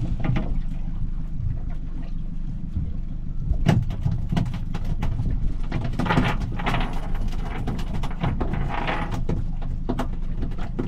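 Steady low rumble on a small boat at sea, with scattered knocks, clatter and rustling of fishing tackle as a mackerel is brought in on feathers and landed.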